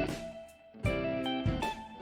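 Instrumental music without singing: guitar chords struck about once every 0.8 seconds, each left to ring and fade before the next.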